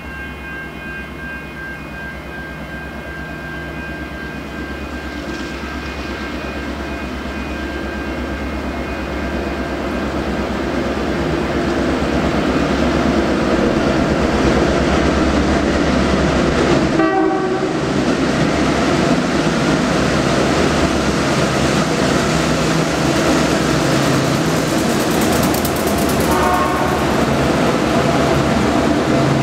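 Diesel-hauled grain train approaching and passing. The locomotives and wagons grow steadily louder over the first dozen seconds, then stay loud with wagon rumble.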